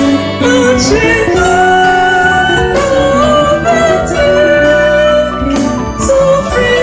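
A woman's solo voice singing a gospel song in long held notes over a full instrumental backing.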